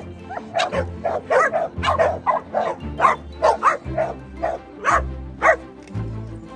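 A pack of dogs barking and yipping over one another in quick short calls, about two to three a second, eager to be let off for a run; the barking thins out after about five seconds. Background music with low bass notes plays underneath.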